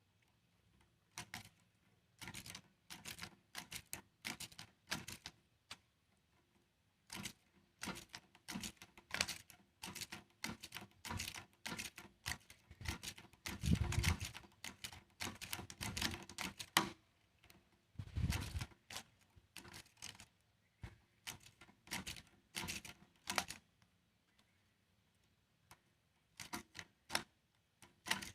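Irregular clicks and knocks from parts being handled and worked on during a fan repair, with a couple of heavier thumps midway.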